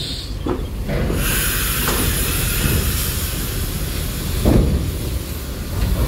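A coach's engine running with a low rumble, joined about a second in by a steady hiss, with one heavy thump a little before the end.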